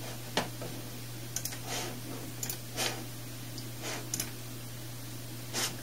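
Computer mouse clicking irregularly, some clicks in quick pairs, as menus are opened and chosen, over a steady low hum.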